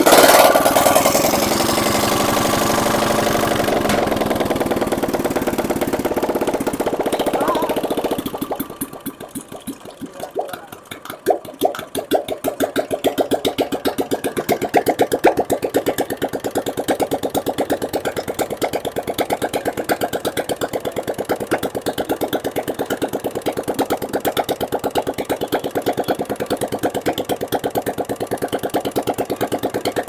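Royal Enfield Classic 350 single-cylinder engine running at raised revs. About eight seconds in the revs drop away, and the engine stumbles for a few seconds before settling into a steady idle. The engine has just been rebuilt and its nuts are not yet given their final tightening.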